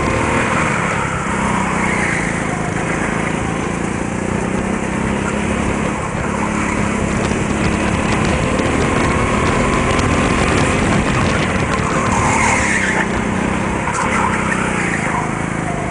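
Go-kart engine running at speed, heard from the driver's seat, with tyres squealing briefly twice near the end as the kart slides through corners.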